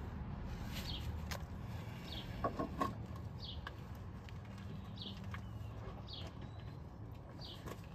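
A small bird chirping: one short falling note about every second and a half, six in all, over a low steady hum. A few sharp metallic clicks come about a third of the way in.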